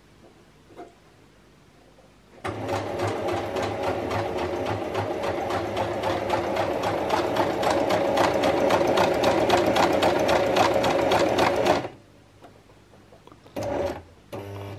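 Domestic electric sewing machine stitching a straight seam: a rapid, even clatter of the needle mechanism that starts a couple of seconds in, runs for about nine seconds and stops abruptly. Two short bursts follow near the end.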